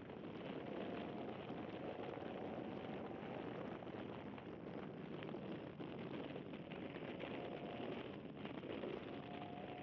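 Toyota GT86 driving at speed, heard from a GoPro on the outside of the car: steady wind and tyre road noise with a faint engine note that rises slightly near the start and again near the end.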